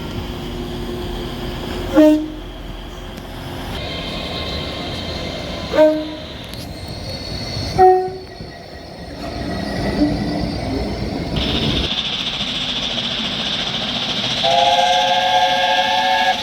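Train horn sounding three short blasts in the first eight seconds over the steady rumble of a running train. Near the end a longer horn chord of three notes starts and holds.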